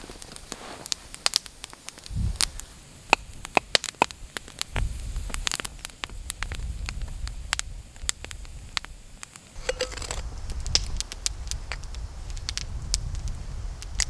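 Wood campfire crackling, with frequent sharp pops and snaps over a low rumble.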